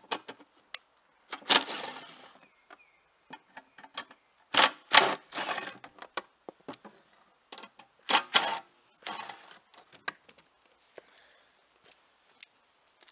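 Ryobi cordless impact gun with an extension and 3/8 socket, rattling in several short bursts of about a second as it backs out the small bolts of a go-kart's drivetrain cover. There are small clicks between the bursts.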